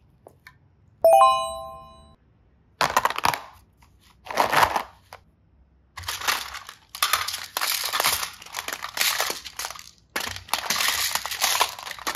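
A single bell-like ding about a second in, then plastic toys and clear boxes of beads clattering and rattling against each other as a hand rummages through them in a plastic basket, in short bursts that become nearly continuous in the second half.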